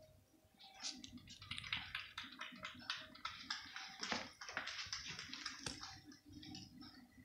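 A cat lapping milk from a plate: quick, wet clicks of the tongue, several a second, starting about a second in.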